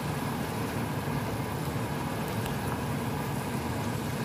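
Spiced coconut-milk paste bubbling and sizzling steadily in a pan on the stove.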